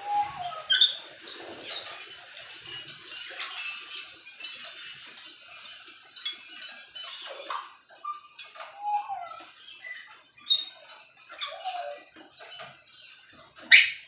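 Several captive aviary birds calling at once: a scatter of short chirps, squeaks and whistles, with a few brief falling calls lower down. A loud short call comes about five seconds in, and a sharp click just before the end.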